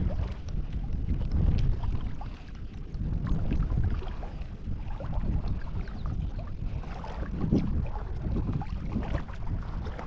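Lake water sloshing and lapping close to the microphone, with small splashes and wind buffeting the microphone in uneven gusts.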